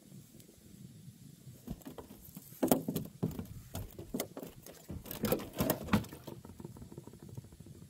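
Fishing rod and gear being handled: a run of irregular clicks, taps and rustles through the middle, quieter at the start and end.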